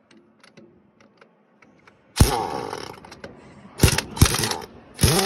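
Power wrench undoing the wheel nuts of a tractor trolley: a few faint clicks, then from about two seconds in four loud bursts of whirring and hiss, each dropping in pitch.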